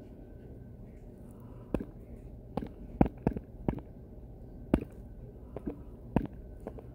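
Irregular single taps on a phone's touchscreen keyboard while typing a short chat message, about nine quick clicks with the densest run in the middle, over a low steady hum.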